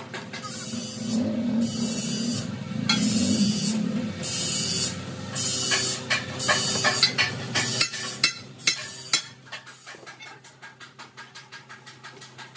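Steel wire scraping and clicking as it is pulled through punched holes to stitch a split tractor tire sidewall, long drawn-out rasps in the first half giving way to quicker, quieter ticks near the end. Steady background music runs underneath.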